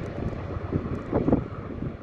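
Wind buffeting the microphone in gusts, strongest about a second in, over the distant low rumble of a departing diesel locomotive-hauled V/Line passenger train.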